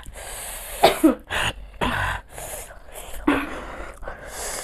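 Two women coughing, clearing their throats and breathing out hard in a string of short breathy bursts, from the burn of hot green chilies.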